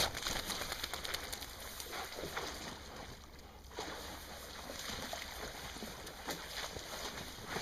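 Outdoor noise on a hat-mounted camera's microphone: a steady low wind rumble with scattered rustling and crackles from movement in long grass, over flowing river water.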